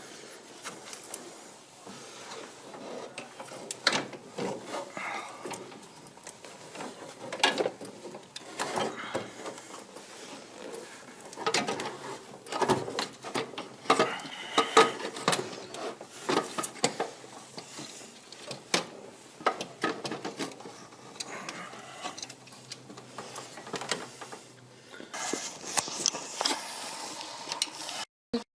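Irregular clicks, knocks and scraping of hand tools and metal parts during an alternator refit in a car's engine bay.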